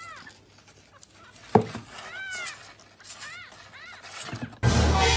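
A young kitten mewing repeatedly, thin high-pitched mews that each rise and fall, about five in all. A sharp thump about a second and a half in, and a loud rush of noise near the end.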